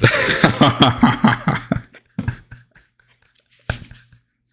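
Rapid babbling and percussive mouth sounds from a man's voice, beatbox-like, for about two seconds, then a few faint clicks and one sharper click near the end.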